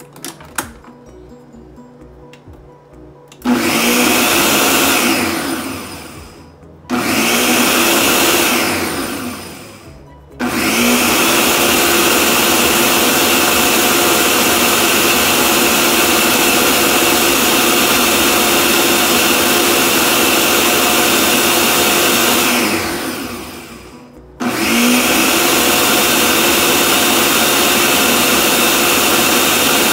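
Electric blender motor running on the cream-laden kulfi mixture, switched on about three and a half seconds in. It is stopped and restarted three times, and its whine falls away as the motor spins down at each stop.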